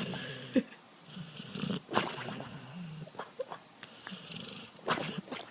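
A pet animal making short breathy or vocal sounds, repeating about once a second, with a few faint clicks between them.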